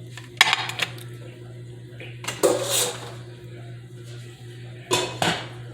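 A serving spoon clinking and scraping against a pot and plate as curry chicken and its juice are dished out, in three short clusters of clatter over a steady low hum.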